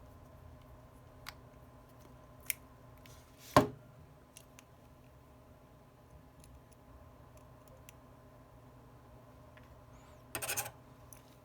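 Small repair tools clicking and tapping against a phone and the work surface: a few light clicks, one sharp tap about three and a half seconds in, and a brief rattle of clicks near the end.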